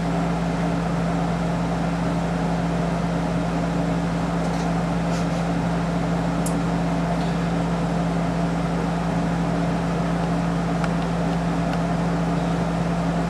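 Steady mechanical hum with a constant low tone, broken only by a few faint clicks.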